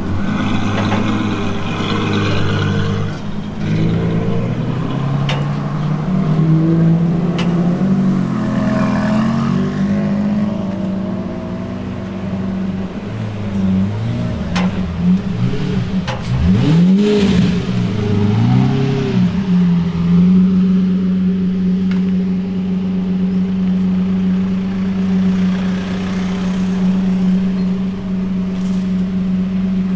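Ferrari F12's V12 engine moving off at low revs, its note shifting as the car pulls away, then supercar engines at the kerb. There are two quick rev blips about 16 to 19 seconds in, and a steady idle through the last ten seconds.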